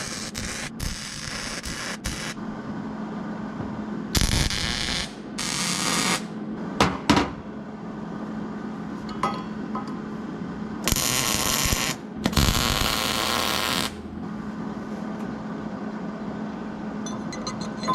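Workshop tool noise: several short bursts of about a second each and two sharp clicks, over a steady low hum.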